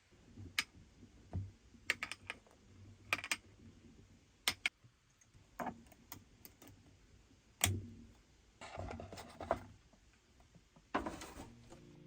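Irregular clicks, taps and light knocks of small objects being handled, with a couple of brief scraping rustles near the end.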